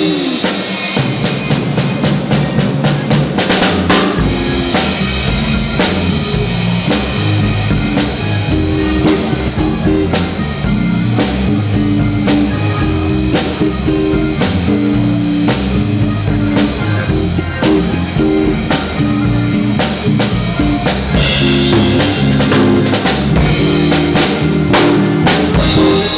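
A live small band playing: drum kit with cymbals, electric keyboard and electric guitar, the drums standing out, over a line of low notes that moves in steps.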